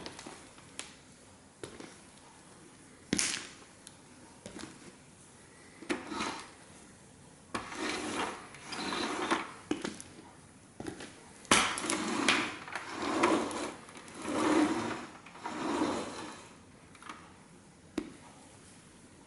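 Sneaker sole pressing on a 1:18 scale model car. First a few scattered clicks, then from the middle on a string of rubbing, creaking scrapes, each about a second long.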